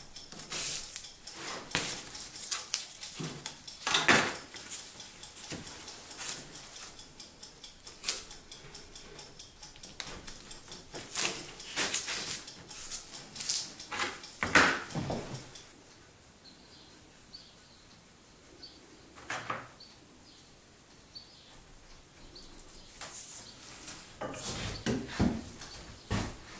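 Clanks, clicks and knocks of metal bar clamps and wooden parts being handled while a wooden bench frame is clamped up. The sounds come in scattered clusters, with a quieter stretch in the middle and more knocks near the end.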